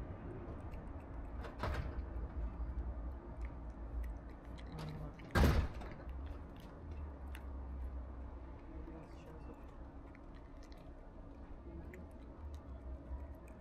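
Tabby cat chewing wet cat food, with small wet clicks and smacks over a low steady rumble. About five and a half seconds in comes a loud sudden thump, with a weaker one near two seconds in.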